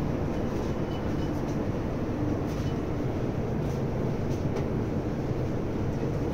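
Steady low rumble and hiss, the running background noise aboard a cruise ferry, with a few faint ticks.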